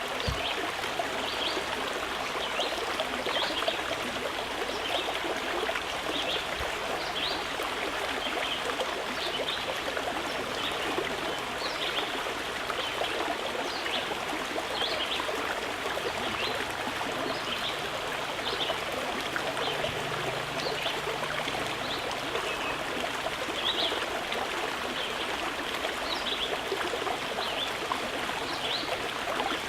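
Running water flowing steadily, with frequent small high plinks of trickling and bubbling over the constant rush.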